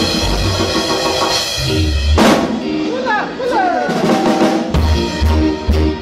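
Live band music led by a Yamaha drum kit, with bass and electric guitar. A cymbal crash comes about two seconds in; the bass then drops out for a couple of seconds while gliding guitar notes sound, and bass and drums come back near the end.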